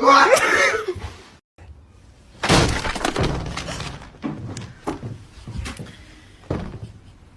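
A loud crash about two and a half seconds in, objects clattering and breaking, followed by several scattered knocks. A brief loud burst, with some pitch in it, comes right at the start.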